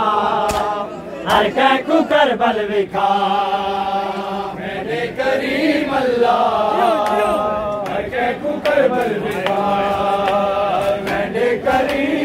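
A group of men chanting a Muharram noha (lament) in unison, in long held lines. Sharp hand slaps on bare chests (matam) come in runs of about three a second, twice in the first few seconds and again near the end.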